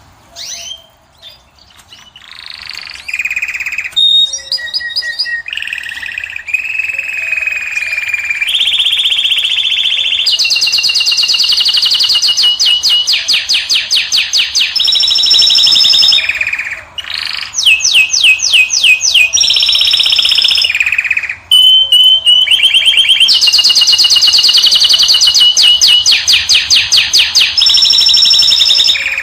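A caged finch singing a varied, high-pitched song of short phrases and long, very fast trills, each trill held for several seconds.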